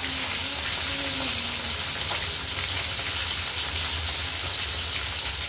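Battered chicken wings frying in oil in a wok: a steady sizzling hiss.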